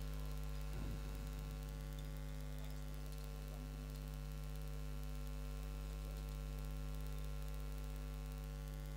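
Steady electrical mains hum from the amplified sound system: a low, even drone with several overtones.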